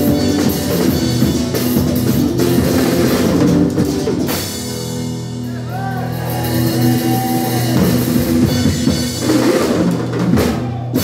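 Live rock band: a drum kit played hard with guitar. About four seconds in, the drums drop out and held guitar chords ring. Near the end the drums come back in with cymbal crashes.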